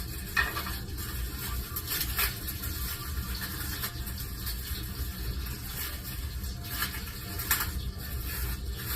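Scattered light knocks and clicks from handling food and utensils during salad prep, over a steady low hum.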